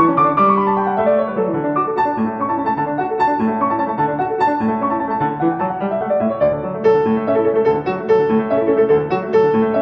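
Background piano music, a steady flow of quick notes.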